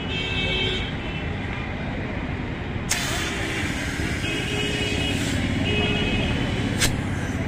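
Steady road traffic noise with several short vehicle horn honks. Two sharp metallic clicks, about three seconds in and near the end, come as a tyre lever is worked under the bead of a tyre to prise it off its steel wheel rim.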